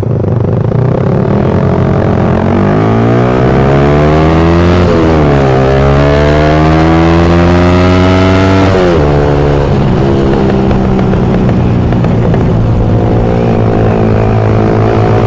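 Suzuki Satria FU's single-cylinder engine accelerating hard, its revs climbing, dipping briefly about five seconds in at a gear change, then climbing again until they drop sharply about nine seconds in and settle to a steady cruise. Wind rush over the rider's microphone throughout.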